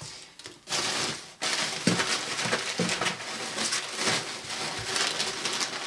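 Packaging rustling and crinkling as items are handled and pulled out of a box. The dense crackling begins just under a second in, with scattered small clicks and knocks.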